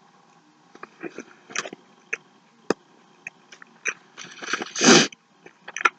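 Close-up chewing of a McDonald's sandwich: scattered wet mouth smacks and clicks, then a loud breathy huff about five seconds in.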